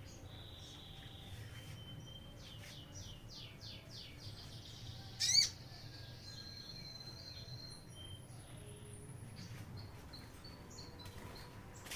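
Caged songbirds chirping and singing. A quick run of repeated trilled notes comes about three seconds in, and a loud sharp call about five seconds in, followed by held high whistles and scattered chirps.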